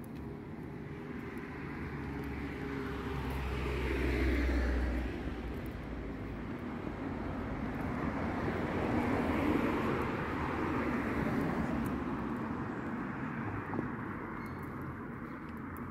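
Road vehicles driving past one after another. The first, with a low engine hum, is closest about four seconds in. The second is mostly tyre noise and is closest around ten seconds in.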